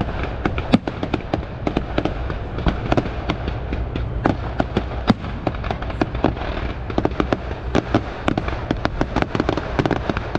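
Fireworks display going off: a dense, irregular run of sharp bangs, pops and crackles, several a second, as shells burst and ground fountains fire.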